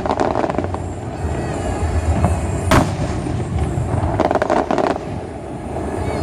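Fireworks display: one sharp bang close to three seconds in, then a rapid run of crackles a little after four seconds, over a steady low rumble.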